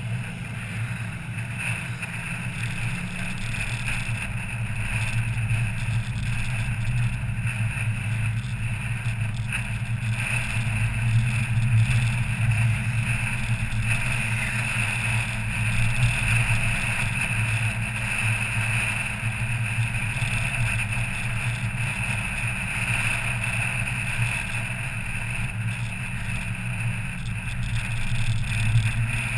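Car driving at a steady pace: a constant low engine drone with road and wind noise.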